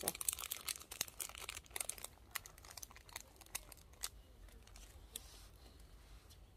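Plastic snack wrapper being crinkled and torn open by hand: a dense run of crackles that thins out after about four seconds.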